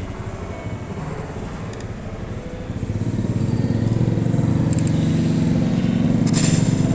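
A motor vehicle engine running close by, a steady low rumble that grows louder about three seconds in and then holds. A brief clink comes near the end.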